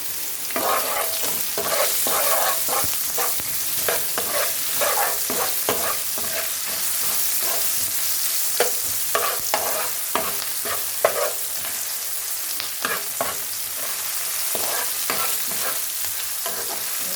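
Onions sizzling in hot groundnut oil in a fry pan, with a spatula scraping and stirring them in repeated short strokes.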